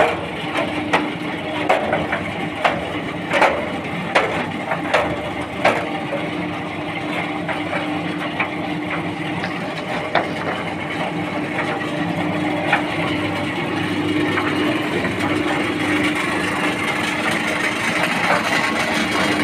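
Electric-motor concrete mixer running with a steady hum. Over the first six seconds sharp knocks repeat about every three-quarters of a second, then the running sound evens out and grows slightly louder.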